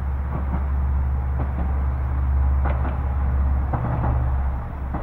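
Single-car diesel railcar running slowly into a station, with a steady low engine drone and a few scattered clicks from the wheels and rails.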